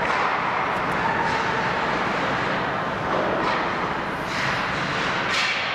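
Ice hockey rink game noise: steady crowd and arena hubbub with voices calling out, and several short hissing scrapes of skate blades on the ice in the second half.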